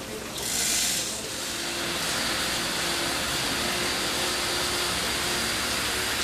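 Hull-repair machinery hissing: a short, louder burst of hiss in the first second, then a steady hiss.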